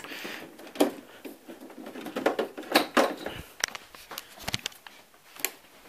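Irregular clicks, knocks and light rattles as cables are unplugged from the back of a Macintosh IIci and the case and cords are handled, a few of the knocks with a dull thud.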